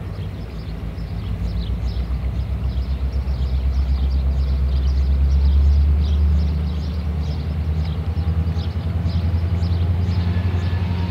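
Freight train diesel locomotives running, a deep, fast-pulsing rumble that swells to its loudest about halfway through and then eases a little, with short high squeaks over it. Faint steady horn-like tones begin near the end.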